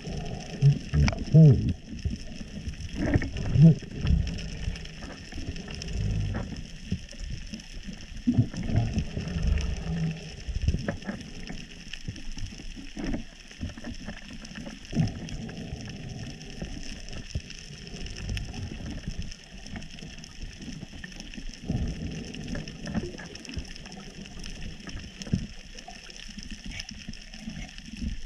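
Underwater reef ambience heard on an underwater camera: a steady crackle of many tiny clicks, typical of snapping shrimp on a reef. Under it come irregular low rumbles and knocks, with a few short low pitched glides in the first few seconds.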